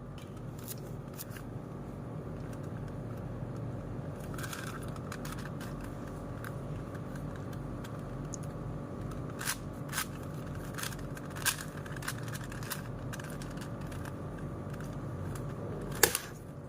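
Plastic 4x4 Rubik's cube being turned by hand: scattered sharp clicks of its layers snapping into place over a steady room hum, with a cluster of clicks past the middle and one louder click near the end.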